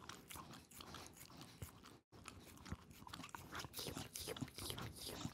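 Shiba Inu licking and chewing frozen dog ice cream from a small cup close to the microphone: an irregular run of wet smacks and crunching bites. The sound cuts out briefly about two seconds in.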